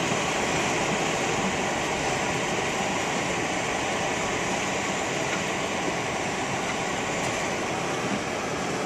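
Blizzard wind blowing steadily: an even rushing noise that never lets up.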